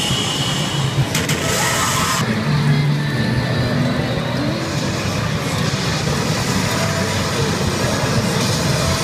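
Steady, loud din of a pachinko parlor, with the Ring Birthday pachinko machine's electronic effects playing over it as it goes into a jackpot.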